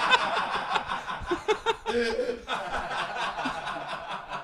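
People laughing and chuckling, loudest at first and dying down toward the end.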